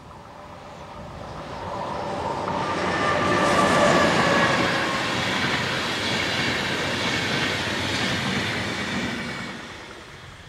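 Intercity train hauled by a DB class 101 three-phase electric locomotive passing at speed: rumble and clatter of wheels on the rails builds over a few seconds, holds as the coaches go by, then fades away. A whine drops in pitch as the train passes.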